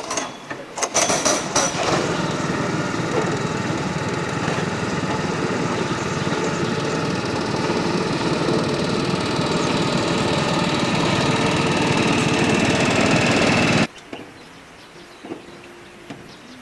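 A small engine running steadily after a few knocks, then cutting off abruptly near the end.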